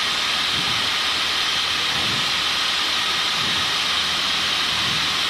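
Steady static hiss from the aircraft's COM radio with its squelch open during a frequency change, heard through the headset audio feed.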